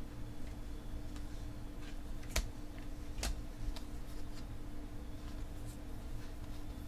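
Baseball trading cards being thumbed through in a hand-held stack: scattered light clicks and flicks as cards are slid off one another, two sharper ones a little under a second apart near the middle. A steady low hum sits underneath.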